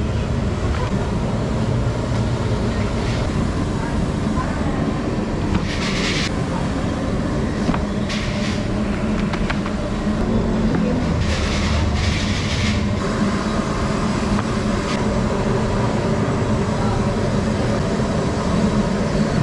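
Steady low roar of a gas burner firing under a frying wok. A few short bursts of hiss sound over it, the longest about two-thirds of the way through.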